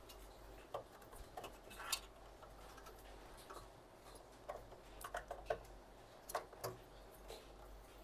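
Faint, irregular small clicks and taps, a dozen or so, bunched around the middle: hands handling computer parts.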